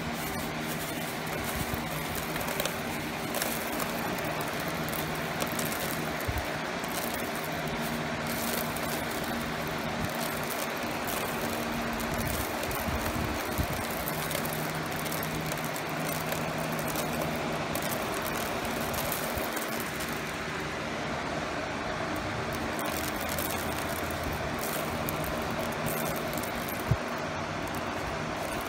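Steady hum of a small motor with a rush of air and a few low steady tones, with scattered light ticks.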